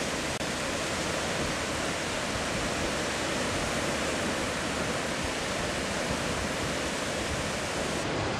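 Steady rush of sea surf mixed with wind on the microphone.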